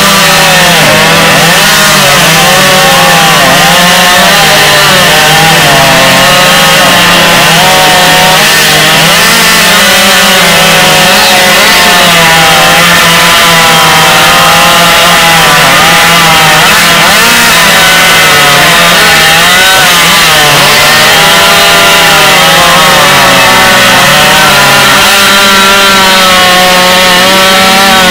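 Loud two-stroke chainsaw running hard through a log, its engine pitch dipping and recovering over and over as the chain bites and clears.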